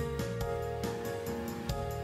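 Background music with a steady, quick beat over sustained held notes.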